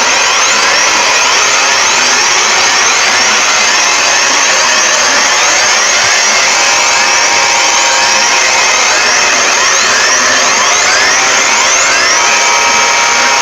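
Mock emergency alert alarm audio: a loud, harsh wall of noise at constant level, with many short rising pitch sweeps layered over it.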